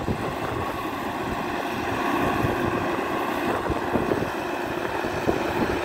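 Sonalika 60 RX turbo-intercooled tractor's diesel engine running steadily at a distance as it pulls a rotavator through a flooded rice paddy, with wind buffeting the microphone.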